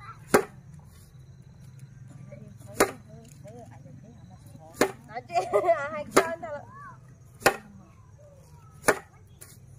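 A bundle of dried grass stalks is swung down and slapped against a flat board, six sharp strikes about one and a half to two and a half seconds apart.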